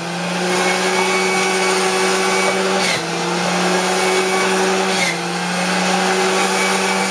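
Electric centrifugal juicer motor running steadily as celery is pushed down its feed chute; its pitch dips briefly under the load about three and five seconds in.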